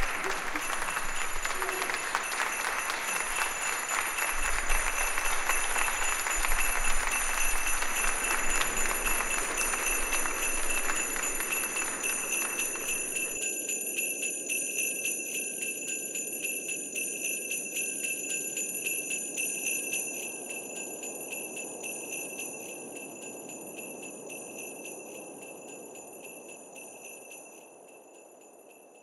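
Jingle bells ringing in a steady shimmer throughout. For the first half they sit under the tail of the audience applause, which cuts off suddenly a little under halfway. The bells then go on alone over a soft low hum and fade out slowly.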